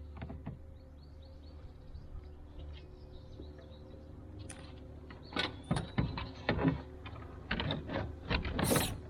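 Scattered knocks and clicks of fishing gear and paddles being handled in a kayak, over a low steady hum, with a brief hiss near the end.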